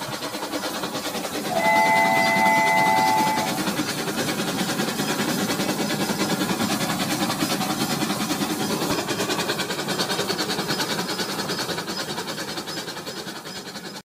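Rail King toy train's small motor and wheels running along plastic track with a steady whirring clatter. About one and a half seconds in, the toy's whistle sounds as a chord-like tone for about two seconds.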